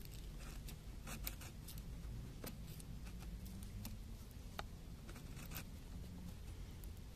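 Knife blade carving into a green stick, cutting out the wood between scored X cuts to form a pot-hanger notch: faint, scattered scrapes and ticks of the blade slicing wood, over a low steady rumble.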